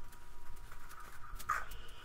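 Faint scraping of a drywall knife spreading joint compound over a plaster wall, with a few light clicks and one slightly louder stroke about one and a half seconds in.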